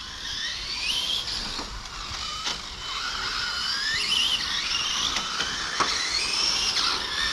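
Two or more 1/8-scale electric GT RC cars racing, their electric motors whining as they accelerate and slow, the pitch repeatedly rising and falling and overlapping, with a few short sharp ticks.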